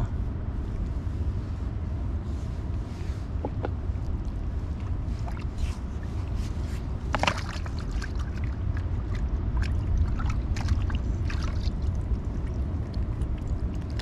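Water sloshing and splashing in a plastic bucket as hands rinse a freshly caught sea creature, with scattered small splashes and handling clicks over a steady low rumble.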